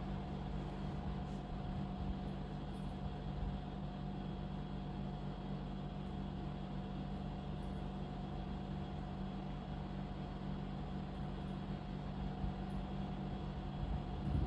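Steady low mechanical hum with a faint higher whine over light hiss: constant background room noise.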